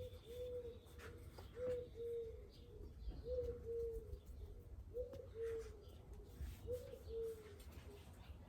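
A dove cooing: a short note then a longer one, the phrase repeated five times at an even pace of about one every one and a half seconds, over a low steady rumble.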